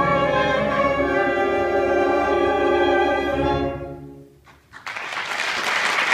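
The song's final held chord: sustained orchestral strings, some lines wavering, that fades away about four seconds in. After a brief hush, audience applause breaks out.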